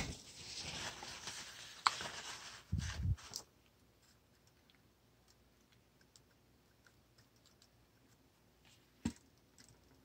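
A paper towel rustles as water is wiped off a boiler feed-controller board, with a sharp click about two seconds in and a few low knocks around three seconds. After that come faint, irregular clicks and one louder click about nine seconds in.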